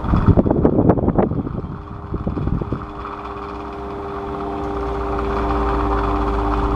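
Electric fan running with a steady motor hum and whir, which grows gradually louder after about three seconds. A burst of rattling knocks comes in the first couple of seconds.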